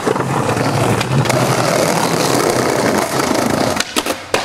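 Skateboard wheels rolling over pavement: a steady rumble, with a few sharp clacks near the end.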